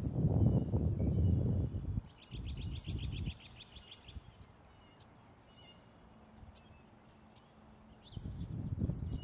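Ospreys calling: a rapid series of high, piping chirps starting about two seconds in and lasting about two seconds, with other short bird chirps scattered through. Bursts of low rumbling noise on the microphone over the first three seconds and again near the end.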